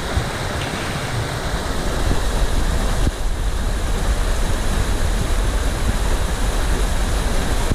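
Shallow river water rushing and splashing over rocks in a riffle: a loud, steady rush.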